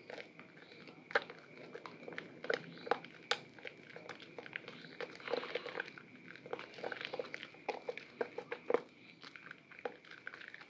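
Hands squeezing and kneading a soaked bar of soap in thick foamy lather: wet squelches with a dense, irregular crackle of small pops and clicks. A faint steady high tone runs underneath.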